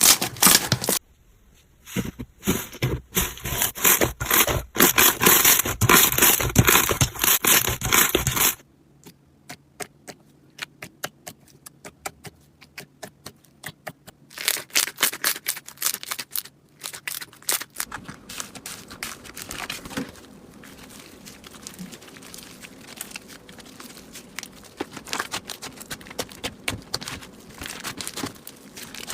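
Slime being squeezed and worked by hand, giving crackling and popping clicks: dense and loud for the first eight seconds or so, then sparse separate pops, then a softer steady crackle in the second half.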